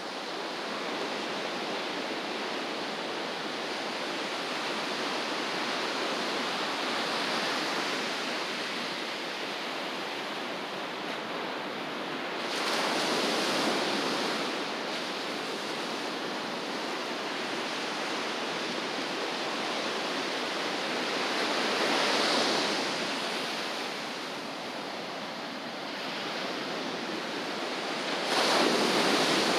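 Ocean surf washing onto a beach: a continuous rush of water with three louder waves breaking, about a third of the way in, around three quarters of the way, and again at the very end.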